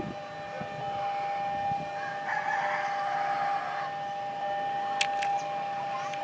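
A rooster crowing once, about two seconds in, over a steady high electronic tone that steps down to a lower tone near the end, with a couple of sharp clicks near the end.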